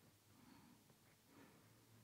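Near silence: faint workshop room tone with a few very soft handling noises.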